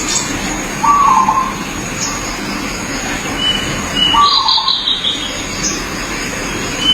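Zebra dove (perkutut) giving its short trilled cooing call twice, about three seconds apart, over a steady high-pitched background tone with other birds chirping higher.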